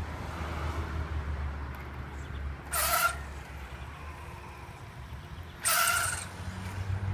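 TLR 22 2.0 electric RC buggy making two short, harsh, pitched bursts of noise about three seconds apart, each roughly half a second long: the weird sound it gives under full-throttle acceleration.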